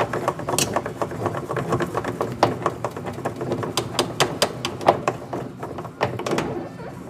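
Brastemp washing machine's agitation mechanism making rapid, irregular clicking and knocking with a low hum underneath. This is the intermittent banging, 'como se fosse uma quebradeira', that the machine makes during the wash agitation.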